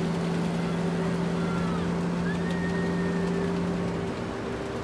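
Induction cooktop humming steadily under a pan of onions sizzling. The hum cuts out about four seconds in, and a few faint high chirps sound over the hiss.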